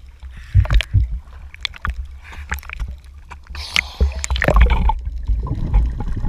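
Sea water sloshing and gurgling around a camera dipping in and out of the surface, heard muffled and low, with scattered sharp clicks. The water sound is loudest about two thirds of the way in, as the camera breaks the surface.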